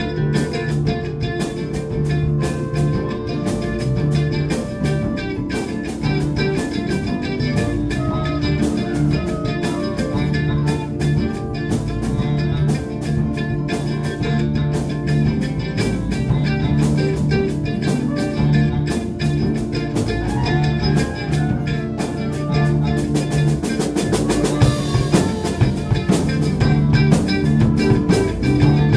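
Live band playing a mostly improvised jam: a drum kit keeps a steady beat under guitars, with the cymbals growing busier in the last few seconds.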